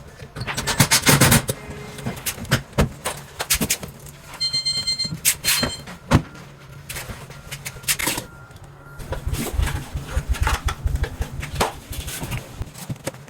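Scattered knocks, clicks and rattles from hands-on dishwasher installation work, over a steady low hum. A brief high tone sounds about four and a half seconds in.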